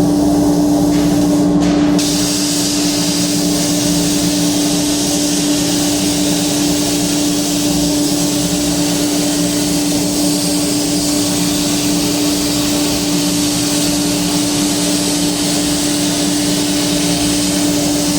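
CNC metal-cutting machine running: a steady hum under a continuous hiss, the hiss filling out about two seconds in.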